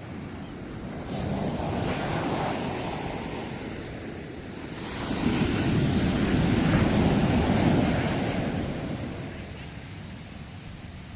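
Ocean waves breaking on a shore: two surges of surf, each swelling and then fading, the second louder and longer.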